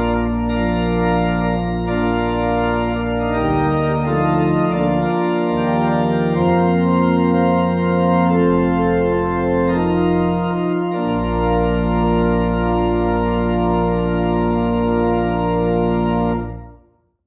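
Organ music: full sustained chords over a held pedal bass, moving through a few chord changes and settling on a long final chord that cuts off near the end.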